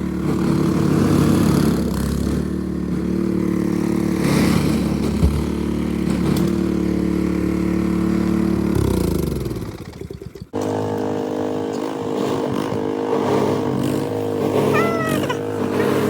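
An engine running steadily, then winding down in pitch and dying away about nine to ten seconds in. After an abrupt break, a different steady engine sound follows.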